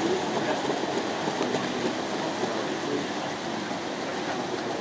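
Hornby O gauge tinplate model train running along tinplate track with a steady rattle, growing fainter after about three seconds as it moves away.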